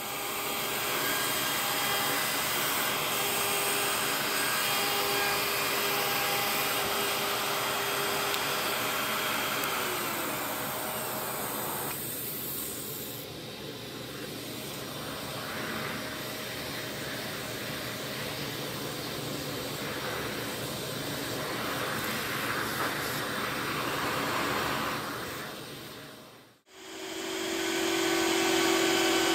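Trim router cutting into a wooden guitar body through a template, with a shop vacuum running alongside; a steady whine with a mix of motor tones. About two-thirds of the way through it breaks off sharply, and a different steady machine sound with a strong low hum starts.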